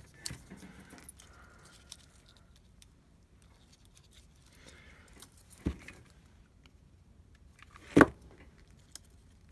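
Scissors snipping thin white card and small pieces being handled on a tabletop, with light clicks and rustle. A sharp knock comes a little past halfway, and a loud thump near the end.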